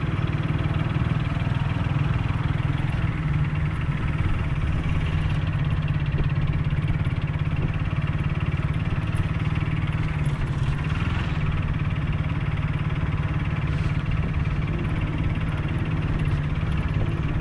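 Motorcycle engine running steadily while the bike is ridden, a steady low drone.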